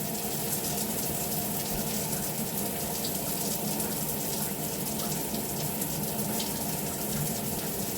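Water running steadily from a newly installed filtered shower head, spraying into the bathtub with an even hiss.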